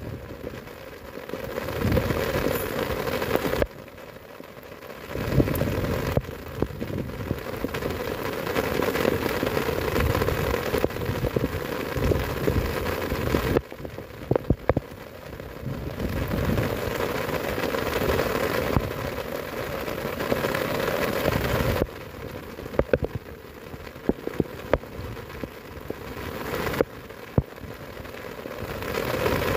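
Heavy rain falling, with a low rumble that swells and drops as the wind gusts and scattered sharp taps. The overall level jumps up and down abruptly several times.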